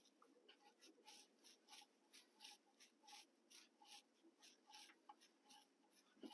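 Faint, rhythmic scratching, about two to three short strokes a second, from nitrile-gloved fingers spinning a loosened oil drain plug out of a tractor's oil pan by hand, with a sharper click at the very end.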